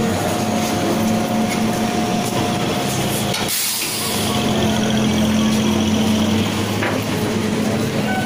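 MEMU electric train running, heard from on board: a steady hum and rumble, with a brief hiss about three and a half seconds in.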